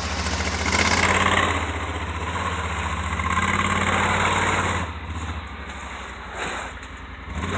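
Off-road vehicle engine running at low revs on a rock-crawling obstacle, the throttle coming up and easing off, then settling to a quieter idle about five seconds in.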